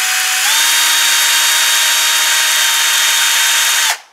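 Electric drill spinning a Q-tip to polish a carburetor's needle seat: a steady motor whine that steps up in speed about half a second in and stops abruptly near the end.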